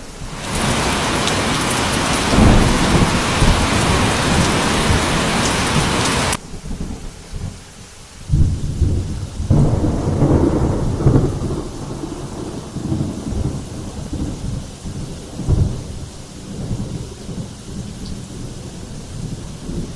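Heavy rain pouring, a dense hiss that cuts off abruptly about six seconds in. Low rumbles of thunder follow, swelling and fading several times.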